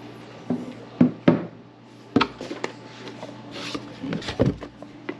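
Handling noise: a few sharp knocks and clatters, with rubbing and scraping between them, as a graphics card's packaging and hardware are moved about.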